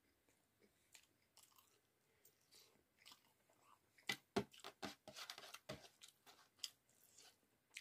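Quiet mouth sounds of eating rice and cauliflower curry: chewing and lip smacks, heard as scattered soft clicks. A busier run of louder smacks comes about four to six seconds in.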